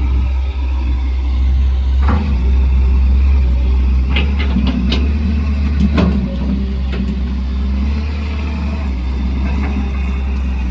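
Caterpillar E200B excavator's diesel engine running steadily, with several sharp metallic knocks about two, four to five and six seconds in.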